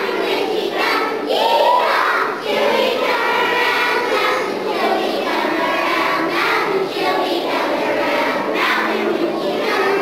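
Children's choir singing together, young voices in unison without a break.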